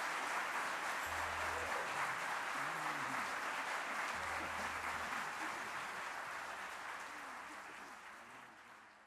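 Audience applauding at the end of a choral performance, a dense steady clapping that fades out over the last couple of seconds.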